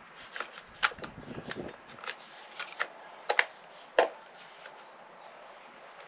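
Plastic starter housing of a Stihl MS 462 C chainsaw being fitted back on by hand: a string of sharp clicks and knocks as it is seated, the loudest two around three and a half and four seconds in.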